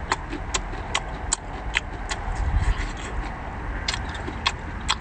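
Close-up mouth sounds of someone chewing a raw garlic clove: sharp, wet smacking clicks at irregular intervals, with a short lull in the middle, over a low steady rumble.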